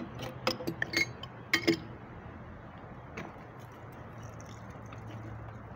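Metal clinks and knocks of a wrench working the pipe fittings of an electric water pump: a quick run of sharp clinks in the first two seconds and one more about three seconds in, over a low steady hum.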